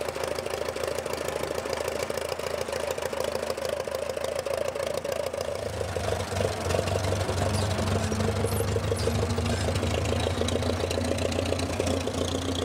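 An antique Moline Universal tractor's engine idling with a fast, even firing beat. About six seconds in, a lower, steadier hum comes in and runs alongside it.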